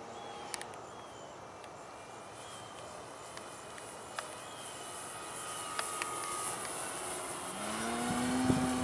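Radio-controlled Hangar 9 P-47 Thunderbolt model airplane in flight, its motor and propeller drone faint at first and growing louder as it comes in low, loudest just before the end as it passes close.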